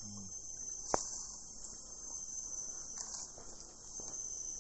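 Steady, high-pitched chorus of forest insects, with a single sharp click about a second in.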